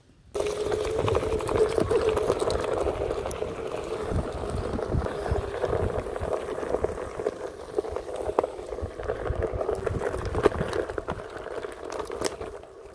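Onewheel electric board ridden fast along a trail covered in dry leaves: the tyre crackles continuously over leaves and twigs under a steady hum, with scattered bumps. It starts suddenly just after the beginning.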